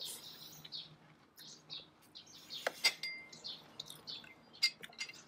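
Birds chirping repeatedly, with a few sharp clinks of tableware, the loudest a little under three seconds in and again near the end. A crisp crunch of chewing the fried chijimi near the start.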